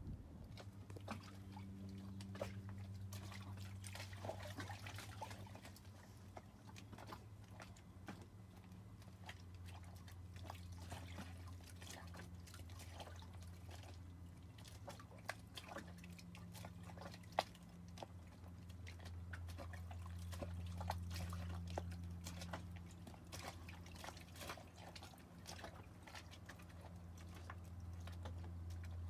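Low steady drone of a sailboat's inboard engine under way, with water lapping, splashing and dripping along the hull in many small clicks.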